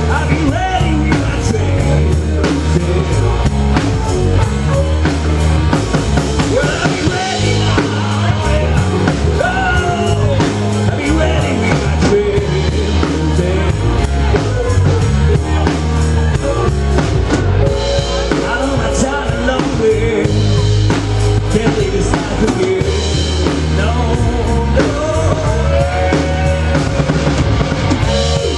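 Live blues-rock band playing an instrumental stretch: an electric guitar lead with bending notes over the drum kit and a heavy low end.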